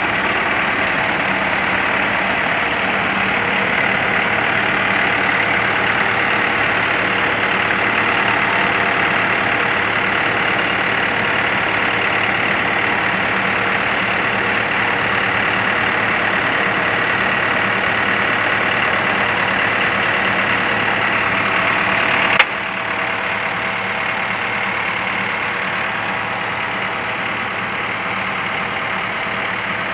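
Medium bus engine idling steadily. A sharp click comes about 22 seconds in, after which the engine sound is slightly quieter and thinner in the low end.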